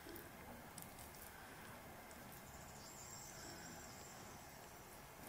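Near silence: faint sticky squelches and a few light clicks of a hand and metal spoon working soft dough in a metal tray.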